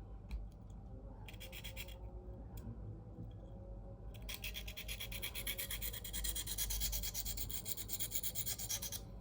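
Steel knife blade (CPM 4V) stroked back and forth across a coarse 325-grit Sharpal diamond plate, a dry rasping scrape while the edge is reprofiled. A short run of strokes comes about a second in, then a longer, steady run of fast strokes from about four seconds in until near the end.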